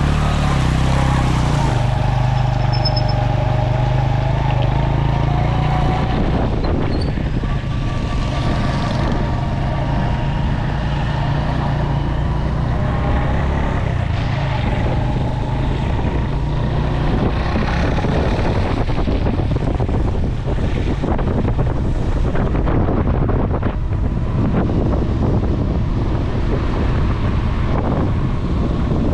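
Motorcycle engine running steadily under way, its low note clear for the first several seconds, then buried under wind noise on the microphone and road noise from the wet street as the ride continues.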